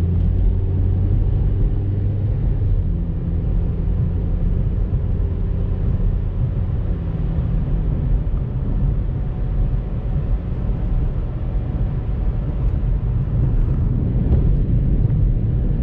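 A motor vehicle's steady low rumble of engine and road noise.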